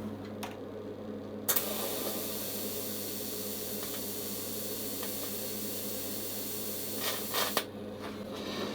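Welding arc hissing steadily for about six seconds, starting abruptly and cutting off near the end, as a copper tube is joined to stainless steel with copper-phosphorus filler, over a steady low hum from the welding machine.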